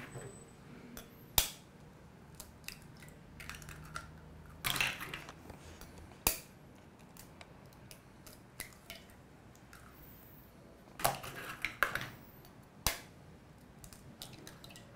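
Eggs cracked open with a metal spoon over a plastic measuring jug: sharp taps of the spoon on the shells and the short crunch of shell breaking, several times, with soft handling sounds in between.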